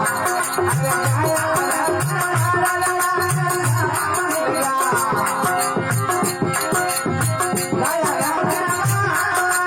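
Rajasthani desi bhajan folk music: a steady drum beat under a continuous jingling rattle and a melody line.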